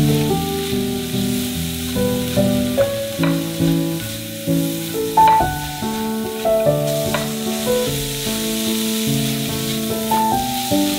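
Food sizzling as it fries in oil in a pan, a steady hiss, with a melodic background music track playing over it.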